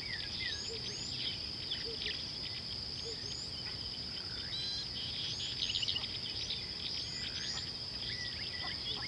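A steady high-pitched insect drone, with many short bird chirps and whistles scattered over it.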